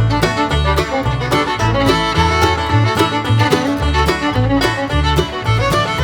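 Upbeat bluegrass-style background music: fiddle over plucked banjo and guitar with a steady bass line.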